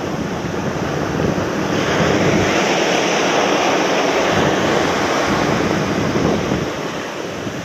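Ocean surf breaking and washing up a sandy beach, a steady rush that swells about two seconds in and eases off toward the end.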